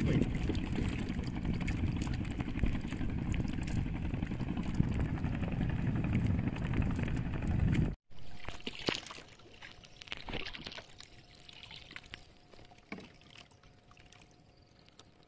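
Small boat under way at sea: a loud, steady rush of motor and water noise. After an abrupt cut about eight seconds in, it goes much quieter, with water lapping and splashing against the hull and a few knocks.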